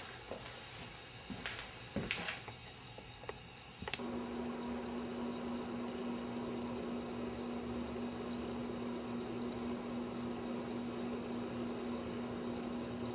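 A few light clicks, as of plastic letter magnets being set on a refrigerator door. About four seconds in they give way to a steady low hum with a hiss behind it, which is the loudest sound.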